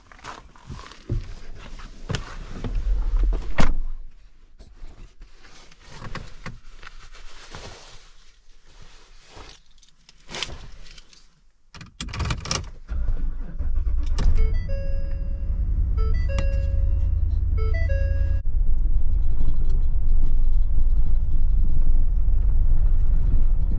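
Scattered clunks and knocks with one sharp bang as someone climbs into a 2023 Ford F-250 pickup. About halfway through the engine starts and keeps running, louder toward the end, while the dashboard warning chime rings several times soon after the start.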